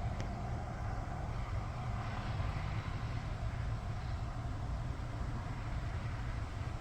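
Gusty wind buffeting the microphone: a steady, unevenly pulsing low rumble under a softer rushing haze, as the winds pick up with the arrival of a lake effect snow band.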